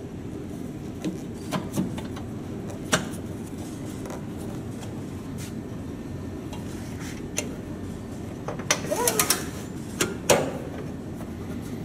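DeWalt compound miter saw being set back to its square angles by hand: scattered clicks and knocks of the saw head, table and locks being moved and clamped. There is a quick clatter of several knocks around nine seconds in and a sharp knock just after ten, over a steady low background hum.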